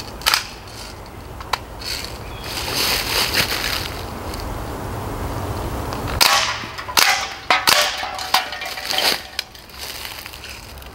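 Umarex Steel Strike CO2 BB rifle firing: sharp cracking shots, a couple early and a quick run of several more after about six seconds.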